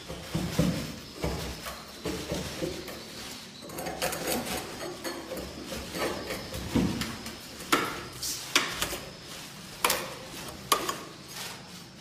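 Irregular knocking, bumping and scraping against the wooden nesting planks of a swiftlet house, with dull thuds in the first half and several sharp clicks near the end.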